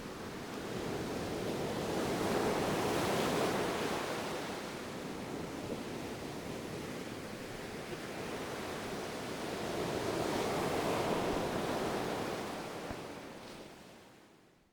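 Ocean waves washing in, with two slow swells of surf, then fading out near the end.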